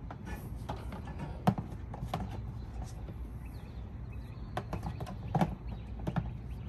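A handful of sharp clicks and knocks, irregularly spaced, as the generator and its lock cable are handled, over a steady low rumble.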